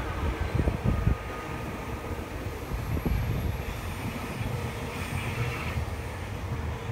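Wagons of a long container freight train rolling past, a steady low rumble with a few sharp clicks of wheels over rail joints in the first second or so.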